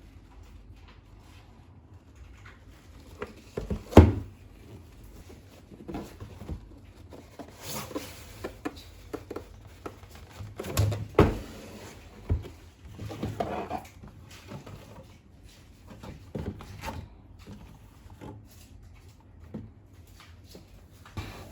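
Handling noises from unboxing a toy gel ball blaster: irregular clicks, knocks and rustles of plastic parts and packaging. The loudest is a sharp knock about four seconds in, with another cluster of knocks around eleven seconds.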